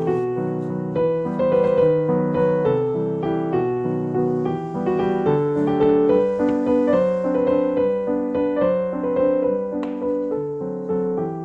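Background piano music: a gentle, steady run of sustained notes.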